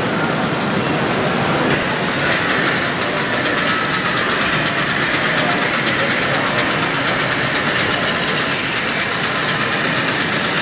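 O gauge model tram running on its layout track amid a steady hubbub of exhibition-hall noise; a higher, even hum comes in about two seconds in.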